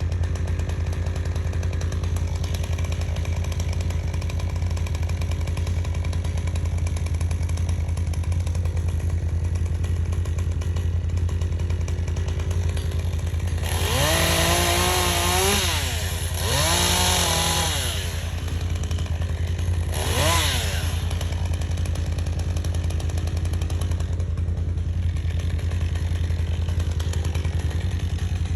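Chainsaw idling steadily, revved up three times about halfway through, twice for about two seconds and once briefly, while pruning water sprouts from an oak.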